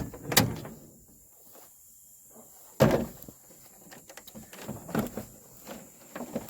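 Knocks and plastic clatter of the truck's interior door trim panel being handled and fitted back onto the door, with one loud knock about three seconds in and lighter taps and rattles after it.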